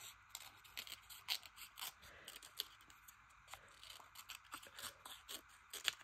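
Scissors snipping through paper, a run of short, faint, irregular snips, a few each second, cutting a picture of a plate into jagged broken-looking pieces.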